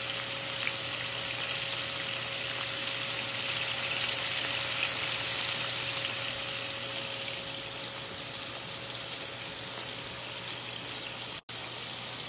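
Chicken pieces sizzling steadily in a skillet on an electric stovetop, with a faint steady hum under the sizzle that stops about eight seconds in. The sound cuts out for a moment near the end.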